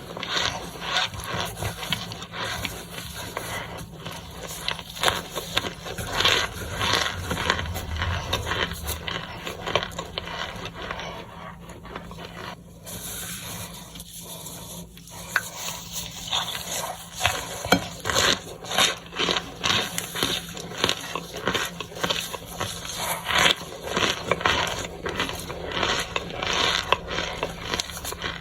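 Wrapping being unwrapped, with dense irregular crinkling and crackling that eases off for a few seconds midway.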